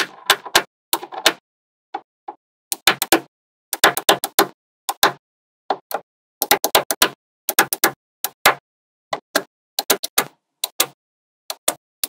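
Small magnetic balls snapping together one after another: sharp clicks in quick clusters of two to four, with short silent gaps between.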